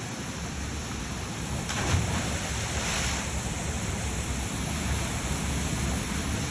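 Waterfall rushing, a steady roar of falling water, with wind buffeting the microphone in a low flutter.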